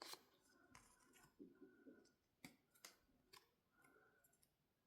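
Near silence with a few faint, sharp clicks and soft rustles of paper and card being handled.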